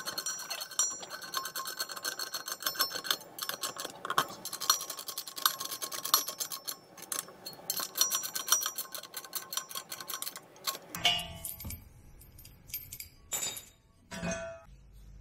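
Socket ratchet clicking in rapid runs as bolts are run down through a steel bracket, the audio sped up with the fast-motion footage. About eleven seconds in the clicking thins out to a few scattered clicks and clinks.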